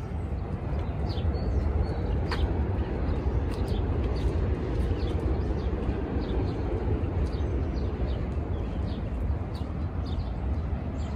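Outdoor ambience: a steady low rumble like road traffic, with birds chirping briefly now and then.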